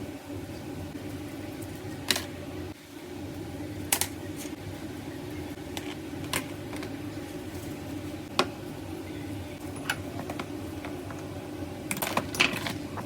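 Small metal fishing-reel parts and tools clicking and clinking against each other and a hard surface, a few sharp clicks at irregular moments with a quick run of them near the end, over a steady fan-like hum.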